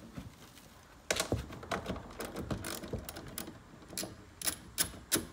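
Ratchet wrench clicking as the 8mm bolts on the back of a Camaro taillight are turned: scattered clicks from about a second in, settling into an even run of about three clicks a second near the end.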